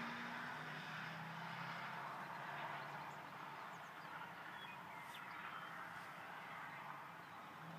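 Faint engine of a distant police car held at a steady pitch, fading out after about two seconds into a low, even background hiss.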